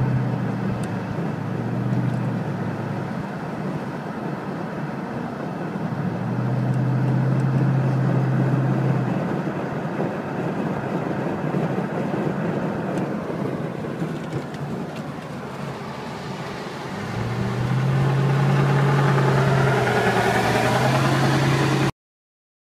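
Car engine and road noise heard while driving, the engine's drone swelling at times as it pulls, loudest from about 17 s on; the sound cuts off suddenly near the end.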